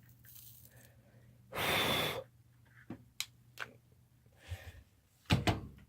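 A man's loud, breathy sigh of disappointment lasting about half a second, followed by a few small clicks from handling the board and wires. Near the end comes a brief murmur.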